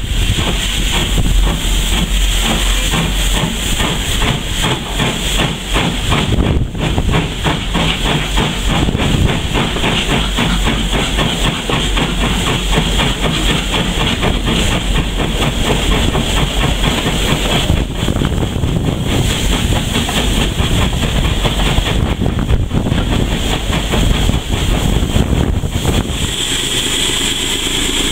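Steam locomotive letting off a loud, steady hiss of steam.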